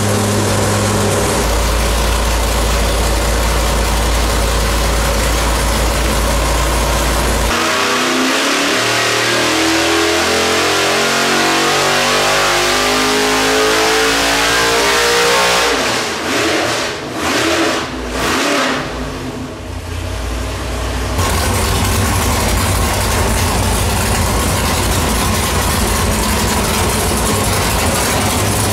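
Carbureted, naturally aspirated 454 LSX V8 making a full-throttle sweep pull on an engine dyno. It holds a steady speed for several seconds, then climbs in pitch for about eight seconds to around 6,500 rpm. It then drops off the throttle with a few choppy breaks and settles back to a steady idle.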